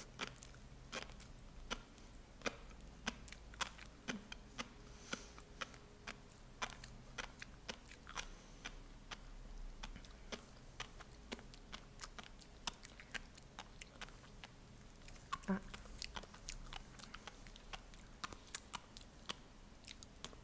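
Mouthful of tobiko (flying fish roe) being chewed with the mouth closed, the tiny eggs bursting between the teeth: a long run of small, sharp pops, about two a second at uneven spacing, with one louder pop about three quarters of the way through.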